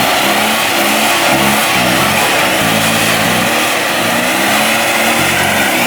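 Car engine revving hard in repeated bursts, its pitch stepping up and down, during a burnout.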